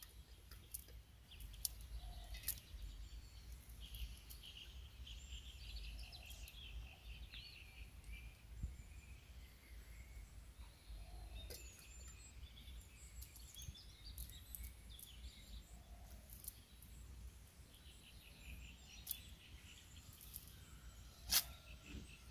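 Outdoor ambience with birds chirping on and off, over a steady low rumble, with a few sharp clicks, the loudest near the end.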